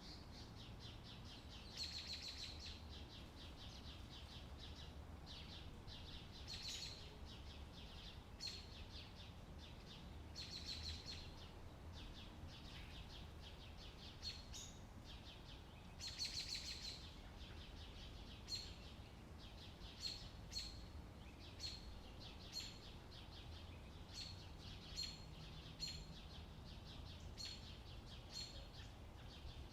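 Birdsong over a faint low steady rumble: short buzzy trills a few seconds apart, then sharp single chirps about once a second in the second half.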